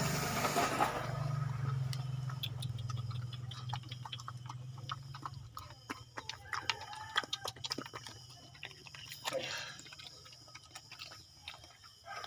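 A puppy eating wet rice mixed with fish from a plastic bowl: irregular wet chewing and lapping clicks from its mouth and teeth.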